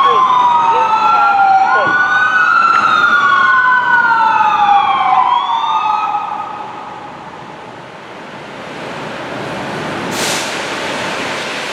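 Fire engine sirens wailing, two slow rising-and-falling sweeps overlapping, then cutting off about six seconds in. After that comes the steady noise of the truck and traffic, with a short hiss near the end.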